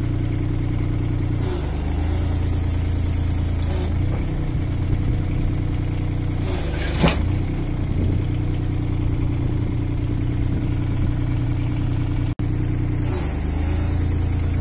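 Takeuchi TB216 mini digger's diesel engine idling at low tickover, its note dipping under load while the auxiliary hydraulics hiss during two lifts of the post driver's weight. A single sharp knock about seven seconds in, as the weight drops.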